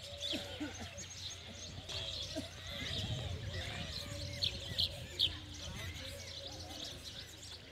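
Small birds chirping and twittering, with a few sharp chirps standing out about halfway through; faint voices in the background.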